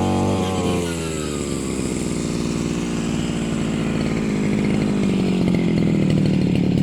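A small engine running with a rapid, rough firing beat. A steady hum fades out within the first second.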